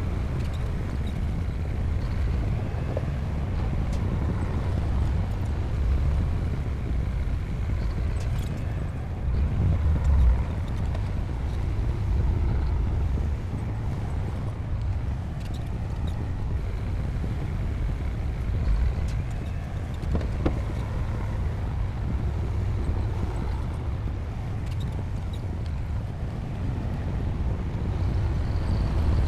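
Diesel engine of a Komatsu D60P crawler bulldozer running steadily at work as a low rumble, swelling briefly about ten seconds in, with a few short knocks.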